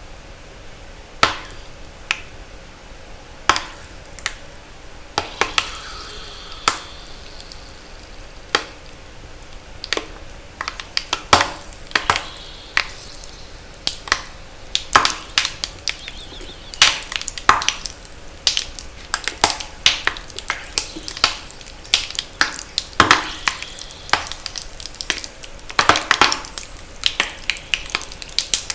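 Reformed blocks of pure magnesium carbonate chalk being crushed, giving sharp pops and crackles. The pops are a few seconds apart at first and come thick and fast from about ten seconds in.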